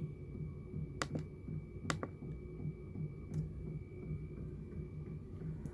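A 12-volt 5 kW diesel air heater starting up: its fuel dosing pump gives about four sharp ticks, a second or so apart, over the steady low hum of the heater's blower and burner.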